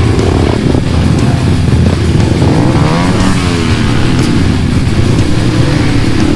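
Honda CRF150L's single-cylinder four-stroke engine running on a dirt trail, with a rise and fall in engine pitch about three seconds in.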